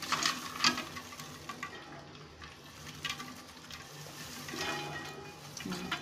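Freshly popped popcorn poured out of a pressure cooker into a bowl: a continuous rustle of tumbling popcorn with scattered sharp clicks.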